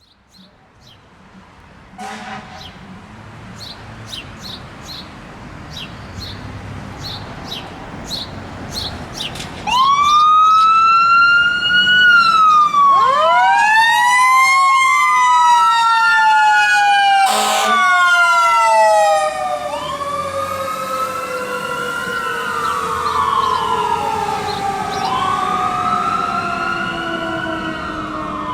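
Fire engine responding with its sirens on. For the first ten seconds there are short high beeps. Then, from about ten seconds in, loud siren wails overlap, each rising quickly and falling slowly, again and again, with a fast warble and a brief horn-like blast partway through.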